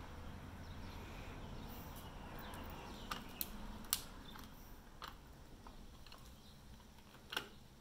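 Quiet room tone with a low steady rumble, broken by a handful of light, irregular clicks in the second half.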